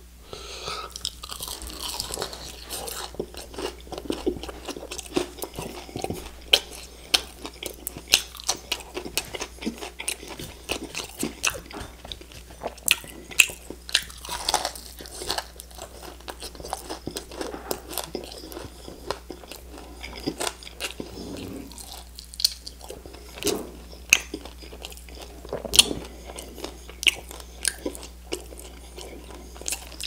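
Close-miked biting and chewing of crispy chicken wings, with frequent sharp crunches and clicks.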